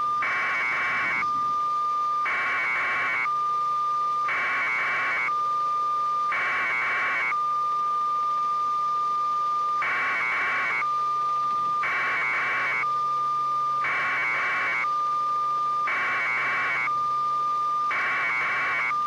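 An electronic signal: a steady high tone broken about every two seconds by roughly a second of harsh buzzing, with one longer pause in the buzzing partway through.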